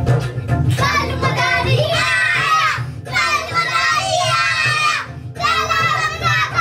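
Several children singing a Hindi children's rhyme together over a backing track with a steady drum beat; the voices come in about a second in, in phrases with short breaks.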